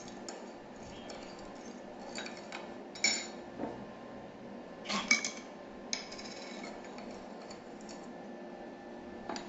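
A spoon clinking against a bowl while spoonfuls of fish sauce are measured into a sweet-and-sour dipping sauce: a few scattered clinks, the loudest about five seconds in.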